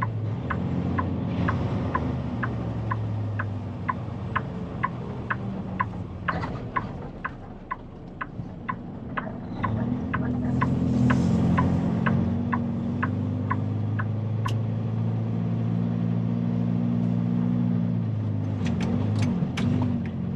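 Turn-signal indicator ticking about twice a second, stopping after about fourteen seconds, over the steady running of a loaded dump truck's diesel engine heard from inside the cab. The engine note grows louder about halfway through as the truck pulls. A few sharper clicks come near the end.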